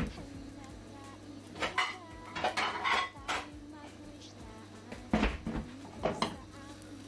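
A cooking utensil clattering and scraping against a frying pan in several separate bursts a second or two apart, with short metallic ringing after some knocks.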